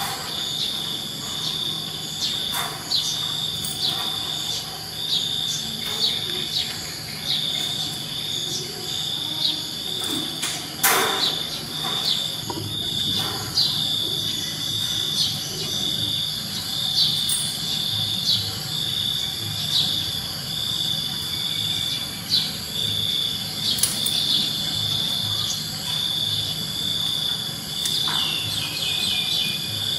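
An insect chirping steadily in a continuous run of high-pitched, evenly repeating chirps, with a few faint clicks and taps over a low hum.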